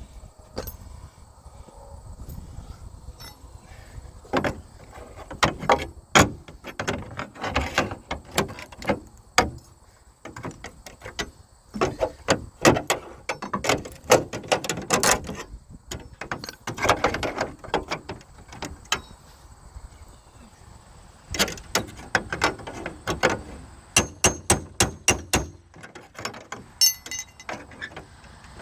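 A series of irregular knocks and clatters in clusters, with quieter gaps between them.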